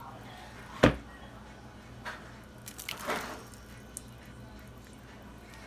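A wooden spoon stirring a thick black-eyed pea stew in a pot, squelching around three seconds in, with a sharp knock about a second in and a few light clicks.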